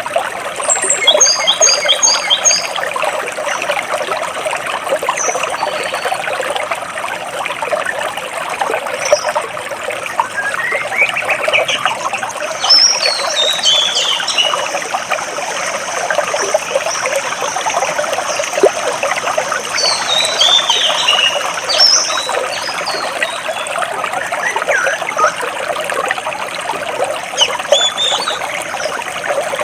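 Water running steadily between large rocks, with birds chirping over it: quick runs of short high notes, a rising call about a third of the way in, and a thin high whistle held for several seconds through the middle.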